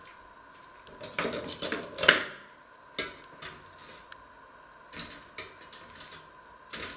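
Kitchen handling clatter: a pop-up toaster being worked and a jar set down on a wooden worktop. There is a run of rattles and clicks about a second in, the loudest just after two seconds, then a few single sharp knocks.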